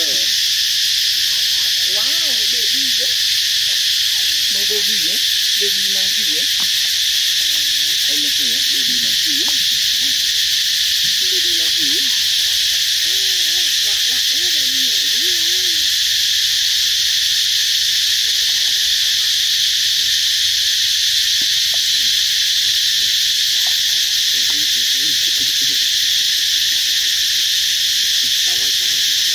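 A continuous insect chorus, a steady high buzz that never lets up. Fainter wavering sounds come and go underneath in the first half.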